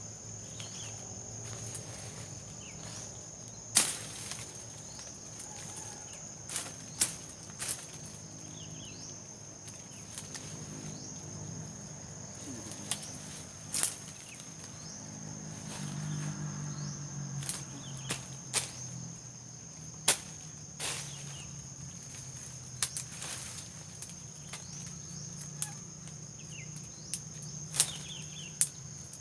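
A steady high insect trill, typical of a cricket, with irregular sharp snaps and crackles of twigs and dry vegetation being stepped on and handled.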